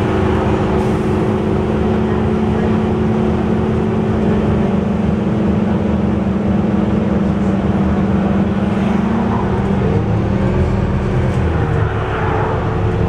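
Scania/Alexander Dennis Enviro400 double-decker bus heard from inside the lower saloon while running at speed: a steady engine and drivetrain drone with held tones over road noise. Near the end the tones shift in pitch and the level dips briefly.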